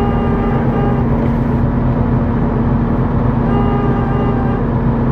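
Steady droning hum held at one pitch over a low rumble, from an unidentified machine or device that the listeners take to be about to die.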